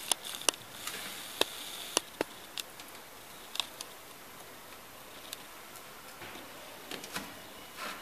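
Small sharp metallic clicks and ticks as a snap ring is worked into the housing of a plunger-type feed pump to lock its slider and roller tappet: several in the first two and a half seconds, then a few scattered ones.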